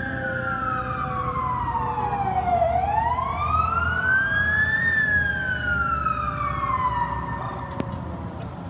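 Fire engine siren wailing, its pitch sliding slowly down, then up and down again, over a low engine rumble. It grows louder toward the middle as the truck draws near, then fades and stops near the end.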